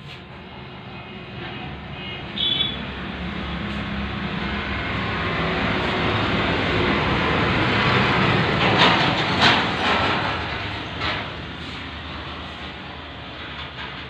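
Rumbling engine noise of a passing vehicle, swelling to its loudest a little past the middle and then fading. A few sharp knocks come near the peak.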